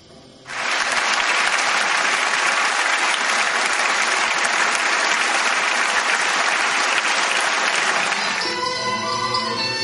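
Theatre audience applauding. The clapping breaks out suddenly about half a second in and holds steady for about eight seconds, then gives way to music near the end.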